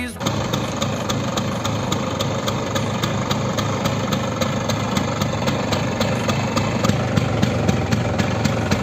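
LML Vespa scooter's two-stroke engine idling steadily, with a regular sharp tick about five times a second.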